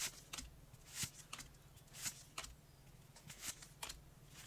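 Pokémon trading cards from a booster pack being slid and flipped one by one, making faint, short swishes at an uneven pace.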